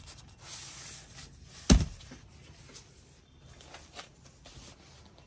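Stacks of paper wedding invitation cards being handled and packed into woven plastic bags: rustling of card and bag, one sharp thump a little under two seconds in, and a few light knocks near the end.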